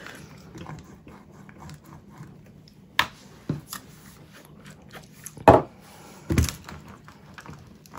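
Handling sounds of cleaning a clear stamp: a stamp cleaner bottle being handled and applied, then a cloth wiping the stamp on the stamping tool, with a few sharp clicks and knocks, the loudest about five and a half and six and a half seconds in.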